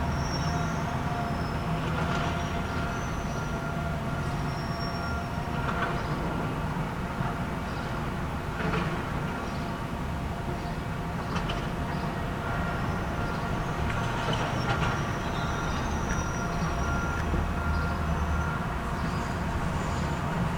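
Large hydraulic excavators working demolition debris: their diesel engines run steadily, with now and then a clank or scrape of metal and rubble and a thin high squeal.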